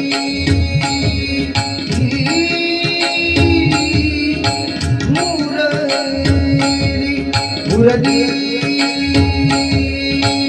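Instrumental passage of a Marathi devotional song: regular hand-drum strokes under held melodic tones. The singer comes back in near the end on the word "murli".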